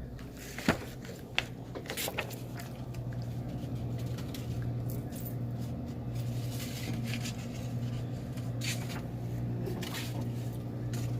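Refrigerator door being opened and things handled inside it: a few sharp knocks and clicks in the first couple of seconds, then a couple more later, over a steady low hum that grows louder a few seconds in.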